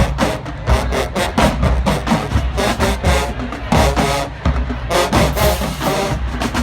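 Marching band playing: brass over a driving drum-line beat.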